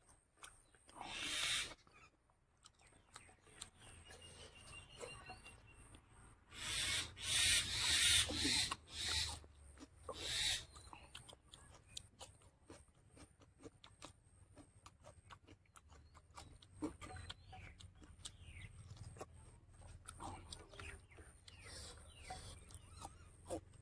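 Close-miked eating by hand: wet mouth clicks, smacking and chewing of rice, pork and raw cucumber, with a few louder noisy mouth sounds about a second in and again around the middle.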